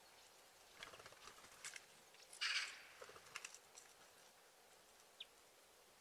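Small birds at a feeder: faint taps and scrapes, then a short rush of wing flutter about two and a half seconds in as a bird takes off, and one brief high chirp near the end.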